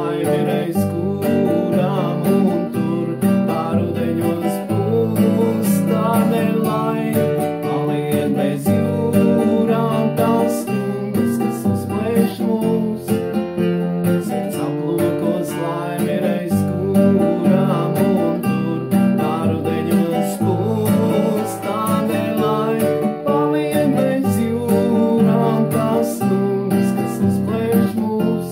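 Acoustic guitar strummed in a steady accompaniment while a man sings along.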